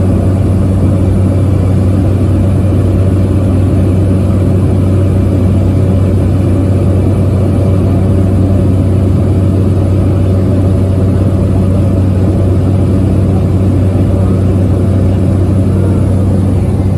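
Light aircraft's engine and propeller in cruise, heard from inside the cabin: a loud, steady low drone that does not change.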